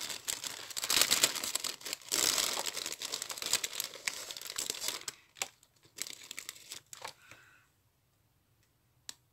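Clear plastic bag of small white craft balls crinkling and rustling as a hand rummages in it for about five seconds, followed by a few light clicks and taps.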